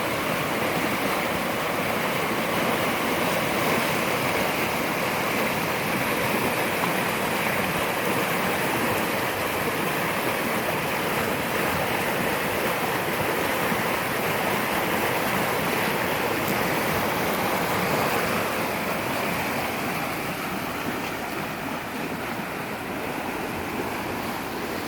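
Floodwater of a swollen creek rushing steadily, a dense even rush that eases slightly over the last several seconds.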